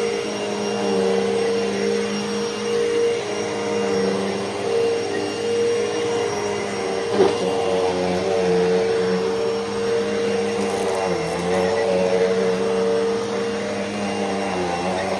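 Hoover Elite Rewind upright vacuum cleaner running steadily while vacuuming, its motor hum dipping slightly in pitch now and then. One sharp click about seven seconds in.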